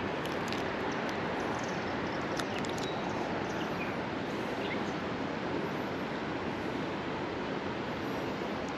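Steady rush of flowing creek water, an even wash of sound that holds level throughout.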